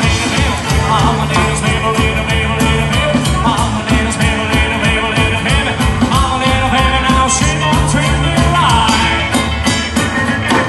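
Live rock and roll band playing: upright double bass, acoustic and electric guitars and drums, with a male singer's lead vocal over a steady drum beat.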